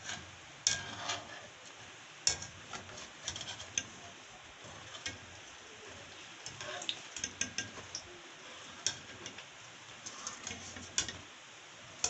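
Akara bean cakes deep-frying in hot oil, a steady sizzle with sharp crackles and pops. A wire skimmer clinks and scrapes against the metal pan as the cakes are scooped out.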